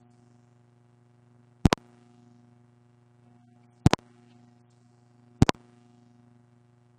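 A low, steady electrical hum with three loud, sharp double clicks, about two seconds apart.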